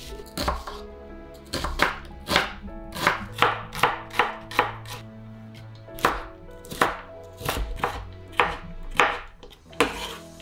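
A kitchen knife chopping onion and then carrot on a wooden cutting board: sharp, irregular strikes, one to two a second, over soft background music.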